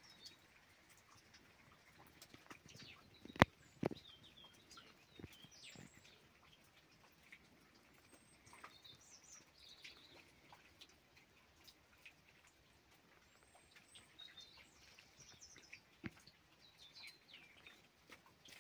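Small wild birds chirping faintly in short, high calls, scattered throughout, with a few sharp taps; the loudest tap comes about three and a half seconds in, with another shortly after.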